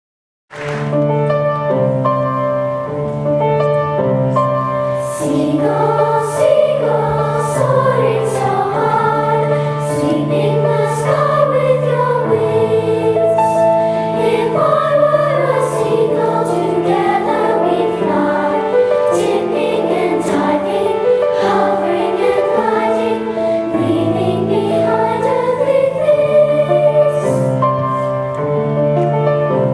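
A children's choir singing, over steady held chords that change every second or two; the music starts suddenly about half a second in.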